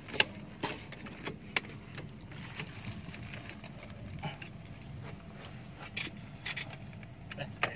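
Metal hand tools clinking and knocking against the bolts of an excavator's track roller as it is unbolted from the undercarriage: irregular sharp clicks over a low steady hum.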